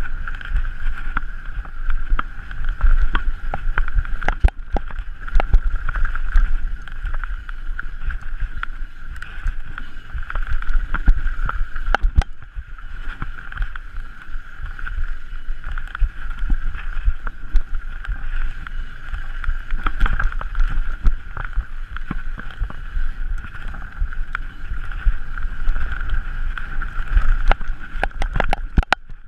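Mountain bike descending an enduro trail at speed: a continuous rumble of tyres and wind on the microphone with a steady high buzz, broken by frequent sharp clicks and knocks as the bike rattles over rough ground.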